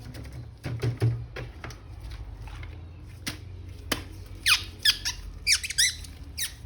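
Clicks and knocks of toys being handled, then a quick run of short, high squeaks, each falling in pitch.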